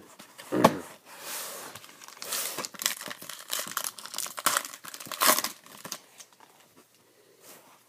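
Trading-card pack's foil wrapper being torn open and crinkled by hand, a dense crackling that runs for several seconds and dies down near the end. A short thump comes under a second in, as a stack of cards is handled.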